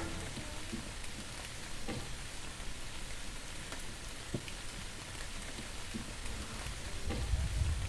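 Faint outdoor hiss with scattered small wet clicks and ticks as fingers work a fish's gills and guts loose by hand. A low rumble builds near the end.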